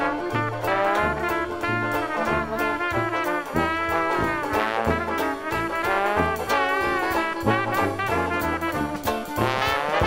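Dixieland jazz band playing: brass horns carry wavering melody lines over a steady bass line and a regular drum beat, from a 1971 stereo LP recording.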